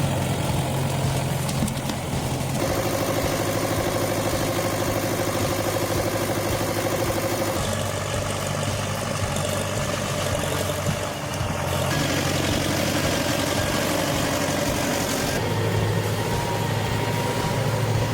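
Tractor engine running steadily, its tone shifting a few times.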